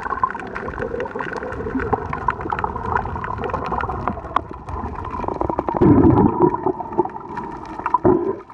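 Underwater sound picked up by a submerged camera: water gurgling and swirling around it, with a steady crackle of many sharp clicks. A louder low rush of water or bubbles comes about six seconds in, and a shorter one near the end.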